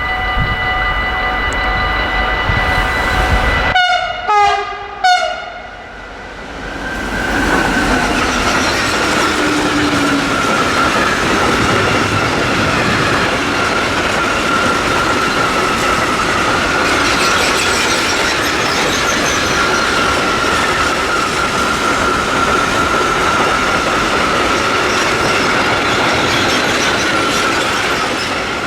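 A train sounds its horn as a steady chord for about four seconds, then gives two short blasts that drop in pitch as it passes. The train then rolls past with a steady clatter of wheels on rail and a thin, steady high tone over it.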